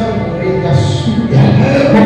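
Background music of long, sustained chords, with a change of chord about one and a half seconds in.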